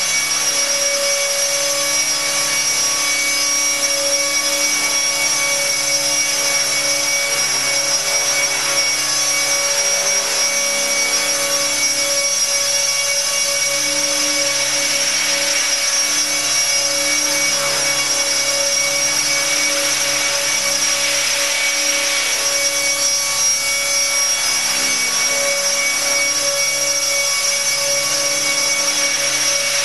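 Align T-Rex 600 electric RC helicopter in flight: a steady high whine from its electric motor and drive over the hiss of the rotor blades, the hiss swelling briefly twice, about halfway and about three-quarters of the way in.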